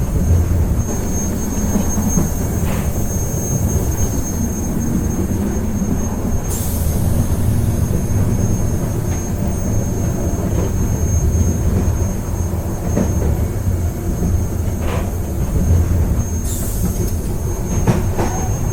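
Moving train carriage: a steady low rumble of the train running on the rails, with a thin steady high tone, a few faint clicks, and two short hisses about six and sixteen seconds in.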